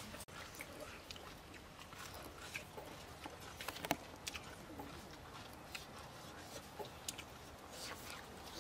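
Faint, scattered small clicks and crackles of cooked eggs being shelled by hand, with chewing near the end as an egg is eaten.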